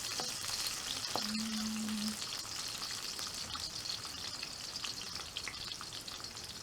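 Hot oil sizzling and crackling in a pan as the deep-fried tempeh fries, with a few clicks. A brief low steady tone sounds about a second in.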